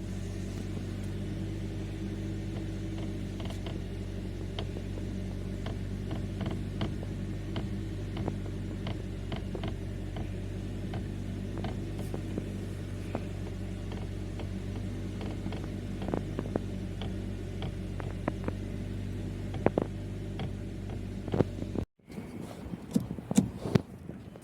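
Maruti Suzuki Baleno steering column clicking and creaking irregularly as the wheel is worked, over a steady low hum; the clicking is the sign of a sticky, binding steering column. About three seconds before the end the sound cuts to a few louder knocks.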